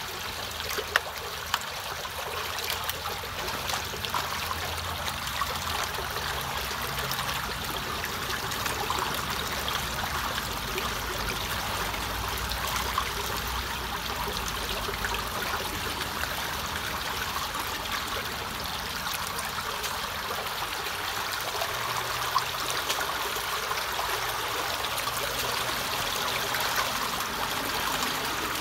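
Muddy water flowing steadily into the mouth of a culvert as its clog of leaves and twigs is cleared, with a few short sharp knocks about a second in and once more past the middle.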